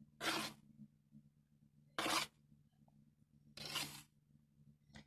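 Flour being tipped and scraped from a bowl into a container of yeast starter: four short brushing strokes, about one every second and a half.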